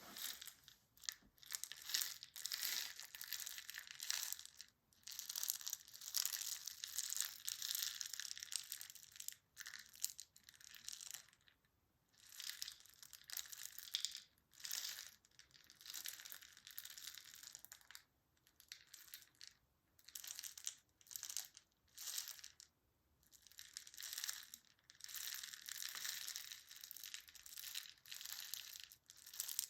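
Crinkling and crushing sounds in irregular bursts of a second or two with short pauses between them, crackly and high in pitch, like material being crumpled by hand.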